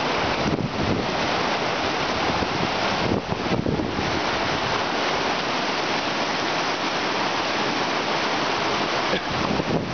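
Fast, silt-laden glacial meltwater stream rushing over rocks and boulders: a loud, steady wash of water noise.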